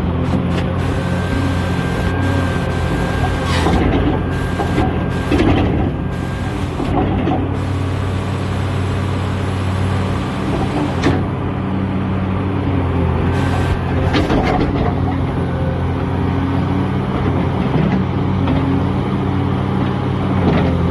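Caterpillar 336D L excavator's diesel engine (a Cat C9) running steadily, with a faint whine for a few seconds early on and a handful of sharp metallic knocks scattered through.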